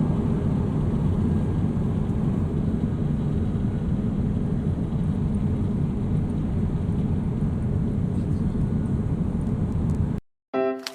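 Steady cabin noise of a jet airliner: a low, even rush of engines and airflow. It cuts off abruptly about ten seconds in, and music starts just before the end.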